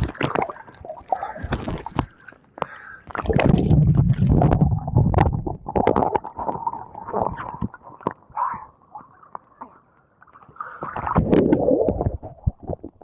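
Seawater sloshing and splashing against a camera held at the surface by a swimmer, with two louder surges, about three seconds in and near the end, as the camera dips into the waves.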